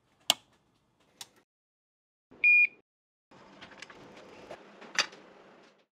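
An illuminated rocker power switch clicks on, followed about two seconds later by a single short, loud electronic beep. A soft hiss follows, with one sharp click near the end.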